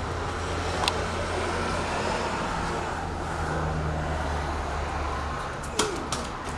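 A low, steady motor hum over a noisy outdoor background, stopping about five seconds in. Two sharp knocks stand out, one about a second in and one near the end.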